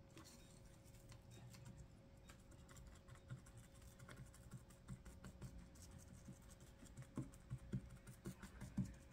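Faint, light tapping and rustling as a small wire cutter presses hot-glued pipe cleaner down onto deco mesh over a wooden board. The ticks grow a little louder and more frequent near the end.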